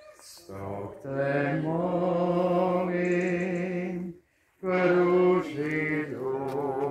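Slow church hymn sung in long, held notes, with a short break about four seconds in.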